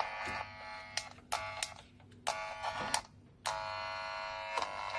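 Network cable tracer probe buzzing in short spells as it is moved from cable to cable, each spell starting and stopping abruptly, with clicks between them.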